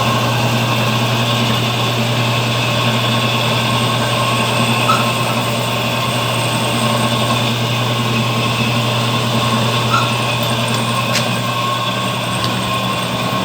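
Bench drill press running, its motor giving a steady, unchanging hum, with a few faint ticks.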